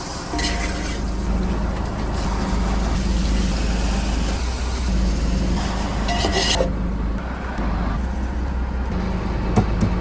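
A boat's engine running steadily, with a broad hiss over it that cuts off about two-thirds of the way through.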